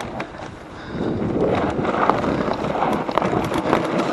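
Mountain bike rolling downhill over a rough dirt trail: tyre noise with the bike rattling and knocking over bumps, and wind on the microphone. It eases briefly about half a second in, then runs louder again from about a second in.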